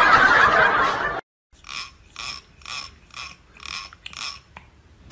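A loud noisy stretch cuts off about a second in. Then come six short rasping strokes about half a second apart: a fingernail raked across the teeth of a comb, each stroke giving the same buzzing ratchet-like rattle.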